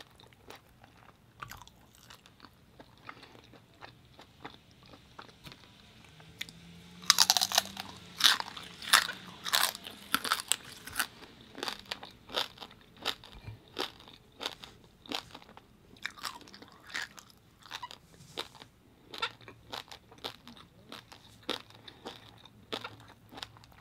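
Chewing and crunching mouthfuls of crisp roasted pig head (Filipino lechon baboy). A few faint crunches at first, a burst of loud crunches from about seven to eleven seconds in, then steady chewing crunches one or two a second.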